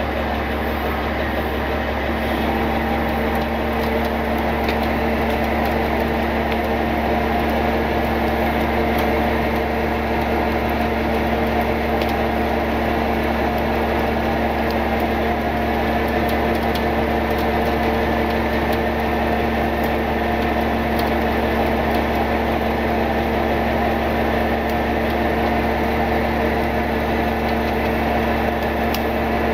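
Tow truck engine running steadily to drive its winch as it slowly pulls an overturned pickup up an embankment. It is an even, unchanging hum with a fixed pitch.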